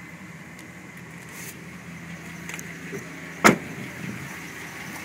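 A pickup truck's door shuts with a single sharp slam about three and a half seconds in, over the steady hum of the engine idling.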